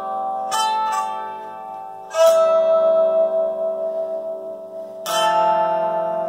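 Ukelin being played: the bow draws sustained melody notes on its steel strings while plucked chords ring under them. New notes with a plucked chord attack come about half a second, one second, two seconds and five seconds in, and the note from two seconds is held for about three seconds.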